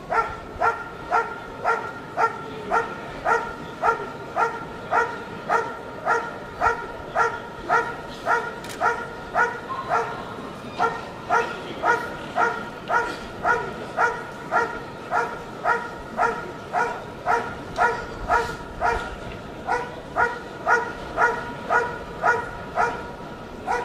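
German Shepherd Dog barking steadily at a protection helper, about two short barks a second in an even, unbroken rhythm: the guard-and-bark after releasing the sleeve in a protection routine.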